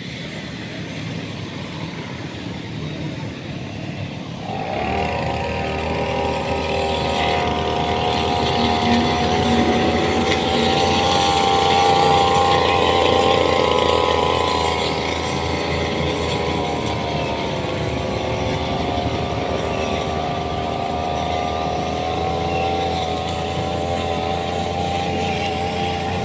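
An engine running. Its note comes up sharply about four to five seconds in, swells a little midway, and then runs steadily.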